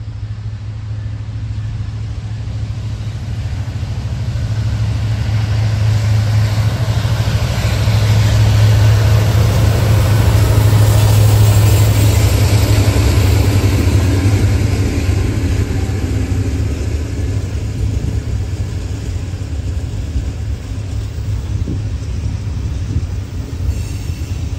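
Norfolk Southern diesel freight locomotives pulling a train up a grade, their engines' deep rumble growing louder as they approach and loudest around the middle as they pass, then easing into the rolling rumble of the boxcars behind.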